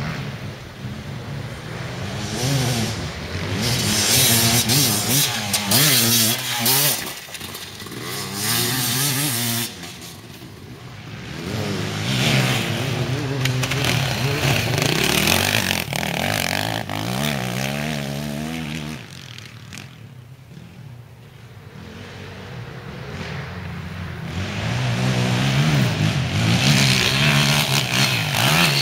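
Several enduro motorcycles passing one after another on a dirt test, engines revving and easing off as the riders work the throttle and gears. The engine sound swells three times as bikes go by, with quieter gaps near a third of the way in and about two-thirds in.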